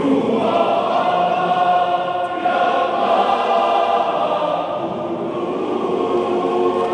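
Adult men's choir singing at full voice, a new phrase entering loudly right at the start and held through.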